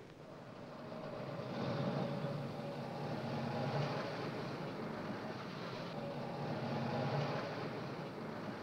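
Cars and a pickup truck driving past on a highway, a steady engine hum and tyre noise that swells about two seconds in and again near the end as vehicles go by.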